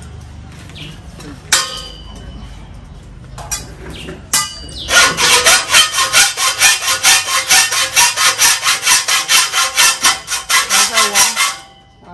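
Hand hacksaw cutting metal in fast, even back-and-forth strokes, about four or five a second, with a ringing tone in each stroke. The sawing starts about five seconds in, after two sharp metal clanks.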